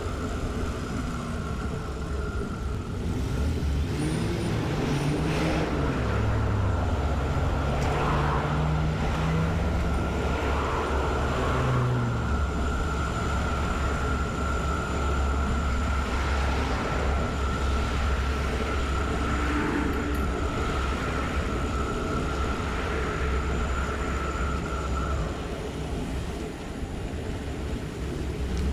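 Road traffic heard while cycling: cars and trucks passing with rising and falling engine hum over a steady low rumble. A steady high-pitched whine runs through most of it and stops near the end.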